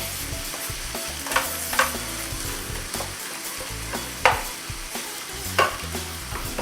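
Beef mince, vegetables and lentils sizzling in a non-stick frying pan while a wooden spoon stirs them, with about four sharp scrapes or knocks of the spoon against the pan.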